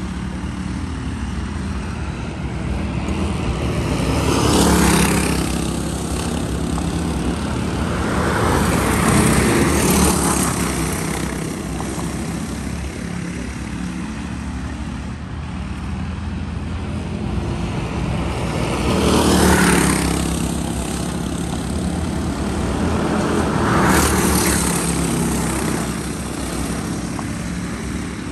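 Racing go-karts with Predator 212 single-cylinder four-stroke engines running round the track: a steady buzzing engine drone that swells four times as the pack passes close, each pass bending in pitch as it goes by.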